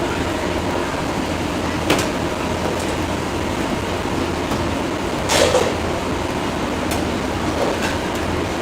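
Steady background rumble and hum with a few sharp clicks or knocks, the loudest about five seconds in.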